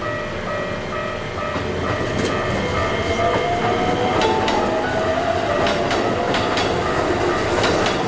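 Japanese level-crossing warning bell dinging in a steady repeat while a red Keikyu electric local train pulls through the crossing. The bell fades after a few seconds, then the train's motor whine rises as it picks up speed, and its wheels clatter over the rail joints.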